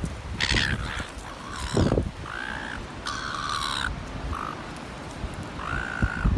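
Gulls calling: about six short, nasal calls in quick succession, with a low gust of wind on the microphone about two seconds in.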